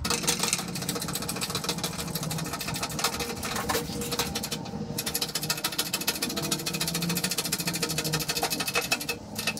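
Keyway broach being pressed through a fly crank's bore in a hand-pumped hydraulic shop press, on a second pass with a shim behind it. It makes a dense rapid ticking that runs with short breaks, about halfway through and again near the end.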